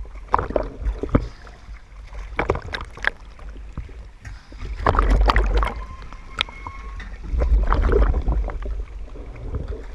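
Sea water sloshing and splashing against a camera housing bobbing at the waterline, with irregular slaps and knocks and a low rumble of water moving over the housing that swells twice, about five seconds in and again near eight seconds.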